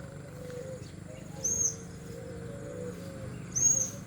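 Lovebird giving short, shrill, high-pitched calls, twice, about two seconds apart.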